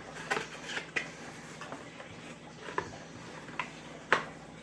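Plastic packaging around a toy RC controller being pried and torn open by hand: a scatter of sharp clicks and crackles at irregular intervals, the loudest about four seconds in.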